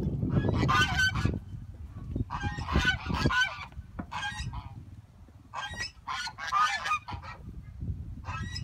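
Domestic geese honking in several bouts of quick repeated calls, with short pauses between the bouts.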